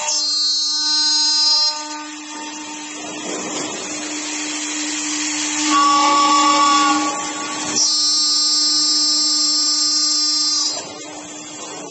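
LCJG3-CNC-6000 CNC aluminium-profile cutting saw running: a steady machine hum with three louder stretches of high-pitched whine.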